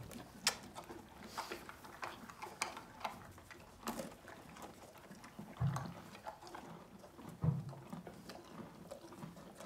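Horse eating cookies off a plate: scattered crunches and clicks of chewing, with two short, low sounds about halfway through.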